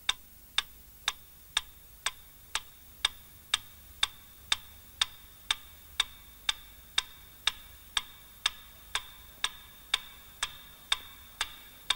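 Slow, steady mechanical ticking, about two evenly spaced ticks a second, like a clock, over a faint steady high tone.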